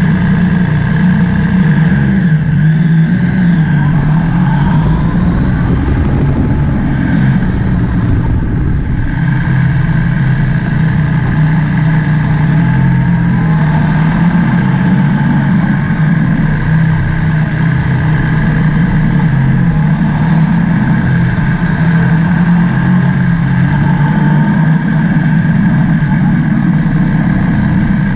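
Motorcycle engine running steadily at low riding speed, with only slight rises and falls in its pitch.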